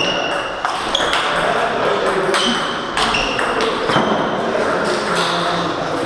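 Celluloid-type table tennis balls clicking off tables and bats in a hall. Irregular sharp ticks, some with a short high ring, come several in a second at times.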